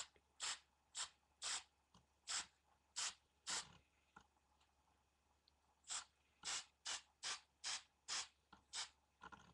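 Aerosol spray-paint can sprayed in short bursts: about two hisses a second, in two runs of about seven with a pause of some two seconds between them.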